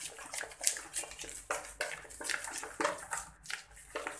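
A bare hand mixing a wet yogurt-and-spice marinade in a plastic bowl: irregular squelching and rubbing strokes, several each second.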